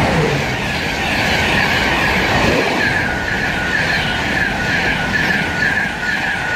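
Two InterCity 225 electric express trains, hauled by Class 91 locomotives, passing each other through the station at speed: a loud, steady rush of wheels on rail. About halfway in, a fast, rhythmic clatter starts.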